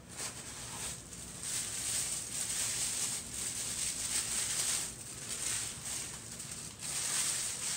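Tissue paper rustling and crinkling as hands unwrap a small bottle from it, a continuous uneven rustle.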